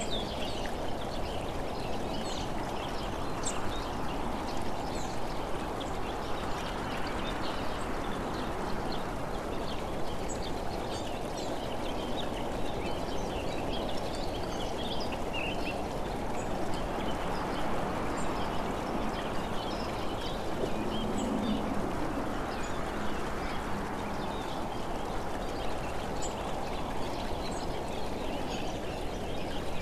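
Steady wind and road rush from a camera moving along an open road, with scattered short high bird chirps. A brief low hum comes in about two-thirds of the way through.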